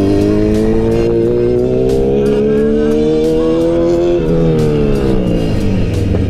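Big motorcycle engine pulling in one gear with its pitch rising steadily, then dropping as the throttle is rolled off about four seconds in, and starting to climb again near the end. Heavy wind rumbles on the microphone throughout.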